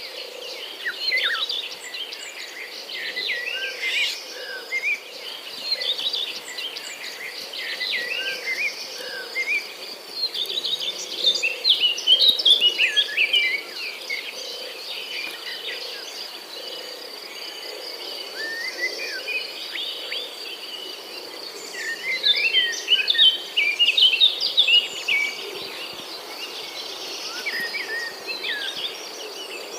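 Several birds chirping and singing over a steady high-pitched insect buzz. The birdsong is busiest about a third of the way in and again about three quarters through.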